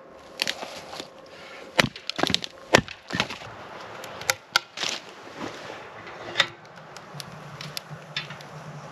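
Hatchet splitting kindling on a wooden chopping block: a run of sharp, irregular strikes and cracks of wood splitting, most of them in the first five seconds.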